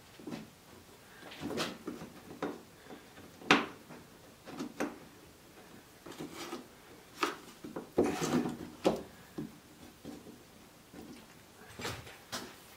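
Bar clamps being worked and taken off cedar boards on a workbench: scattered knocks, clicks and rubbing of the clamps against wood, the sharpest knock about three and a half seconds in and a busy stretch near the middle.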